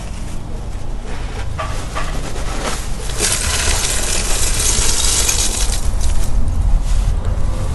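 Dry earthing backfill of charcoal and salt poured in bulk into an earth pit for a lightning arrestor. A few knocks come first; about three seconds in it swells into a rushing, clinking pour that lasts a couple of seconds and then tapers, over a low rumble.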